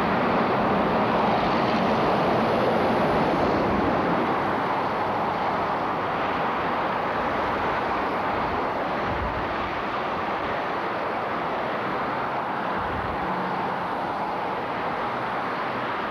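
Steady roar of freeway traffic, a continuous rushing noise that eases slightly after about four seconds.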